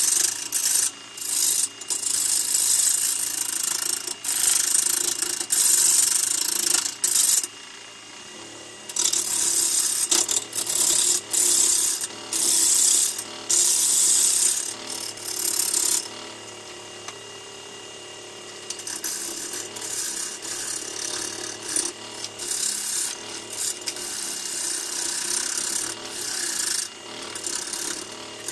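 Gouge cutting the outside of a large spinning jacaranda bowl blank on a wood lathe: a rough shearing rasp in repeated passes of one to three seconds. Between passes only the lathe's motor hum is left, with two longer pauses about eight and seventeen seconds in.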